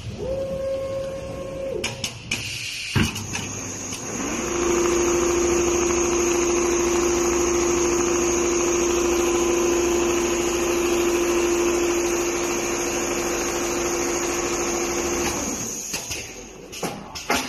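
Four-head computerised leather pattern sewing machine running: a brief motor whine, a few sharp clicks, then a steady whine that spins up about four seconds in, holds over a busy mechanical noise for about eleven seconds, and winds down near the end.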